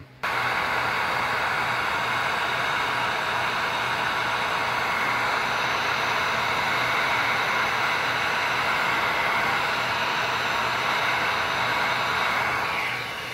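Heat gun blowing a steady rush of hot air, its fan motor humming, while it shrinks adhesive-lined heat-shrink tubing over a crimp connector. The sound eases slightly near the end.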